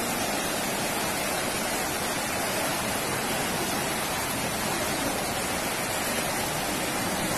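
Fast-flowing floodwater rushing down a street: a steady, even rush of water noise.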